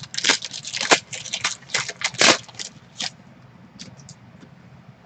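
Foil wrapper of a trading card pack crinkling as it is handled and opened by hand: a quick run of sharp crackles for about three seconds, then a few faint ones.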